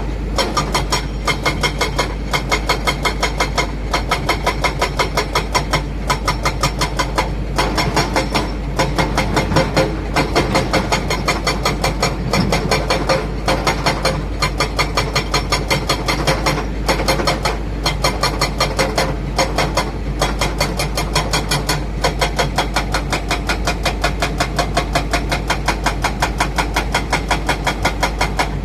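Heavy diesel engines of an excavator and dump truck running steadily, with a regular throbbing beat of about three to four pulses a second.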